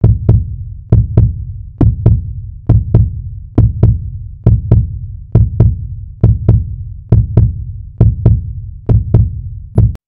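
Heartbeat-style intro sound effect: a double thump, lub-dub, repeating steadily about once every 0.9 seconds, with heavy bass and sharp attacks, until it cuts off just before the end.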